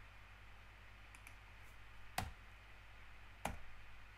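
Two sharp computer clicks, just over a second apart, over a faint steady low hum.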